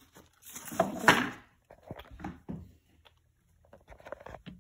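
Plants and decorations being handled and pulled out of a glass terrarium: a loud leafy rustle about half a second to a second and a half in, then scattered light knocks and rustles.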